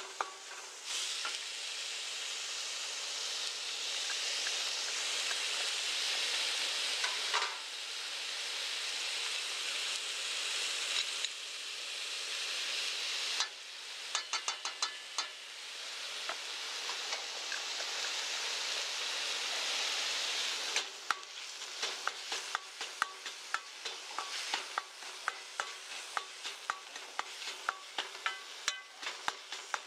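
Minced meat sizzling as it is stir-fried in a wok on a gas camp stove. A spatula and ladle scrape and clack against the wok, with steady frying broken by pauses of clicking, and quick repeated clacks through the last third.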